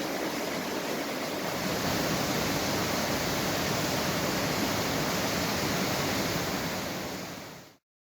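Waterfall rushing with a steady roar of falling water. The sound fades out near the end and is followed by silence.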